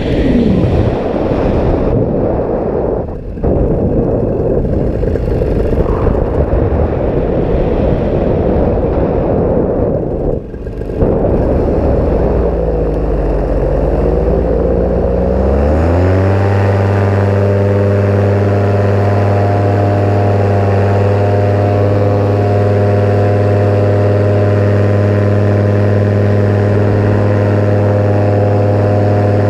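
Paramotor engine and propeller running in flight, mixed with a rushing noise for the first twelve seconds or so. About 13 seconds in, the engine pitch dips, then climbs and settles into a steady even tone as the throttle is held.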